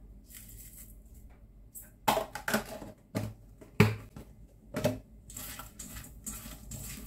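A few sharp plastic clicks and knocks as a salt tub with a snap-on lid is closed and set down, then hands tossing and rubbing salted cucumber sticks in a stainless steel bowl, a wet rustling near the end.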